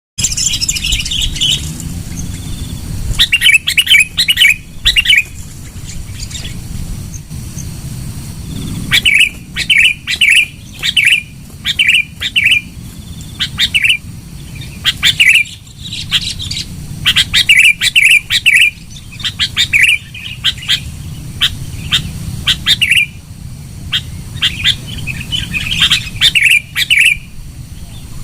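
Sooty-headed bulbul (kutilang) calling loudly and persistently. Short, bright chirping phrases repeat every second or so, with brief pauses, over a low steady background rumble.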